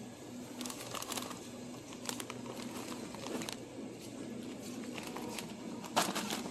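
Plastic snack bag crinkling and rustling as it is handled, in a few short bursts, with a sharper rattle near the end, over a steady low hum.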